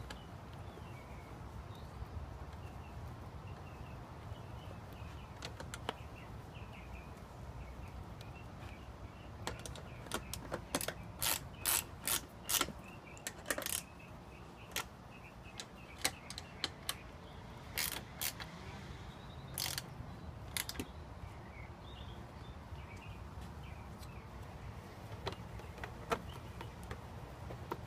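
Quick-release ratcheting handles of a Smoothspyder backrest clicking as they are turned by hand, in several quick runs of sharp clicks through the middle of the stretch.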